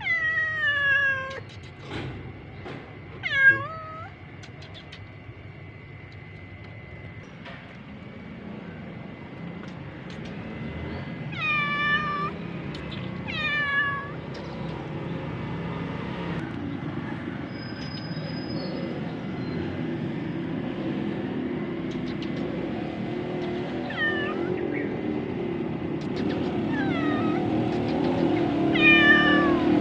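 Calico cat meowing again and again, short calls that fall in pitch, a few seconds apart. A steady low rumble underneath grows louder toward the end.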